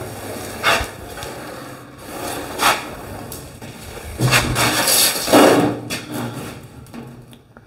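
A large sheet of sheet metal being slid and shifted by hand on a steel table: metal scraping on metal, with several knocks and clanks, the loudest about four to five and a half seconds in.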